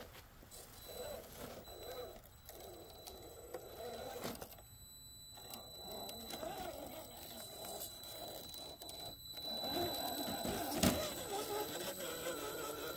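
Electric motor and geared drivetrain of an RC rock crawler whining as it climbs over rocks, the pitch rising and falling with the throttle and briefly cutting out twice. It grows louder later on, with a sharp knock about eleven seconds in.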